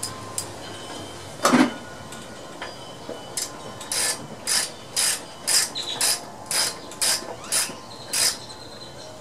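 3/8-inch drive socket ratchet with an extension clicking through about ten short strokes, roughly two a second, as the oil drain plug is run back into the mower engine's sump. A single knock comes about a second and a half in.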